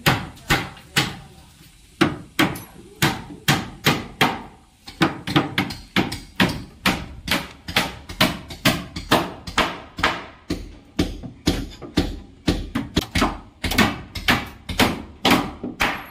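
Hammer blows on the wooden roof-slab shuttering, a steady beat of sharp knocks at about two a second.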